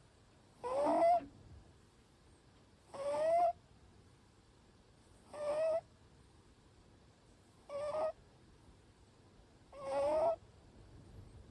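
Short-legged Munchkin cat snoring in its sleep: five slightly high-pitched snores about every two seconds, each rising in pitch.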